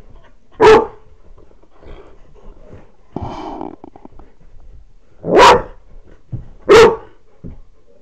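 Dog giving three loud single barks in play, one about a second in and two close together near the end, inciting another dog to play.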